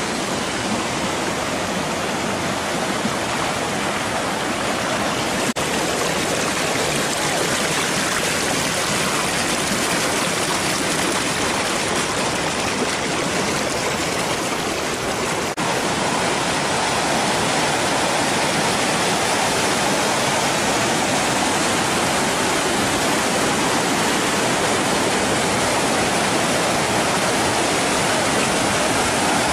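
Waterfall and stream water rushing steadily over rock, growing slightly louder about halfway through.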